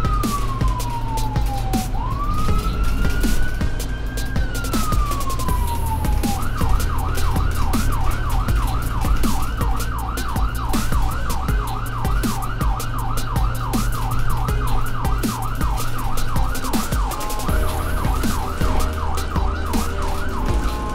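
Electronic ambulance siren sounding: a slow wail falling and rising for the first six seconds or so, then switching to a fast yelp of about three sweeps a second that breaks off briefly near the end.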